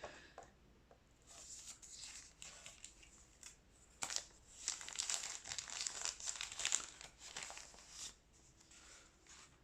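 Plastic packaging crinkling and rustling as it is handled, in irregular bursts that are loudest from about four to seven seconds in.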